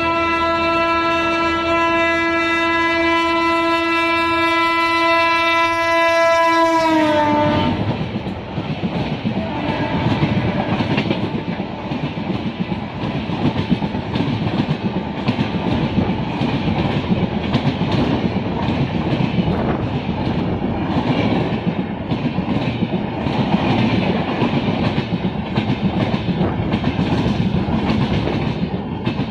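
WAP-7 electric locomotive's horn sounding one long, steady chord that drops in pitch as the engine passes, cutting off about seven seconds in. It is followed by fast, continuous clickety-clack of the coaches' wheels over the rail joints as the express runs through the station at speed without stopping.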